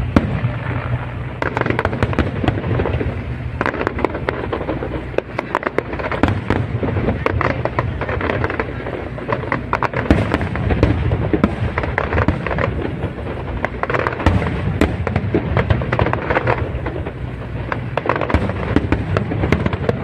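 Aerial fireworks display: a continuous barrage of booming bursts with dense crackling.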